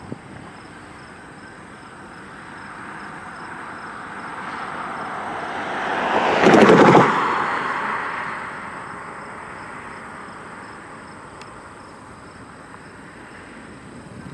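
A road vehicle passing close by: tyre and engine noise swells for a few seconds, peaks loudly about halfway through, then fades away.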